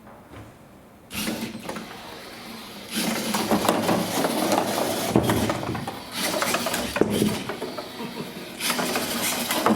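A small autonomous hobby robot's electric drive motors running as it drives across the table-top board, with rattling and knocks. It starts about a second in and gets louder about three seconds in.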